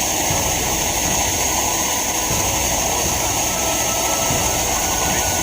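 Coleman 533 dual-fuel camp stove's pressurized burner running with a steady hiss, burning off old fuel before its flame turns blue.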